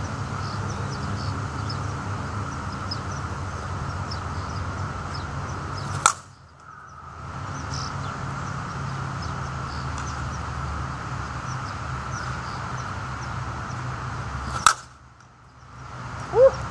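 Two sharp cracks of a slowpitch softball bat striking pitched softballs, about 8.5 seconds apart, each followed by a second or so in which the background hum drops away. Faint bird chirps sound in between.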